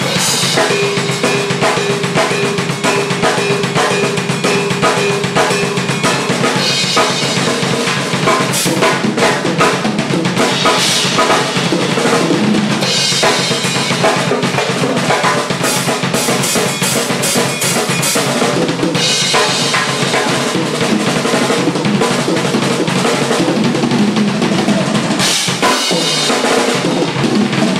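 Drum kit played without a break in a busy drum solo: fast snare, bass drum and rimshot strokes, with brighter cymbal swells now and then.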